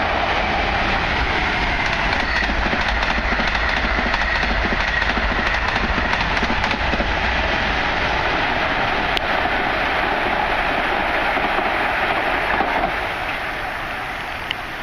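Amtrak Acela Express electric trainset passing at high speed: a loud, steady rush of wheels on rail, fading away near the end as the trailing power car goes by.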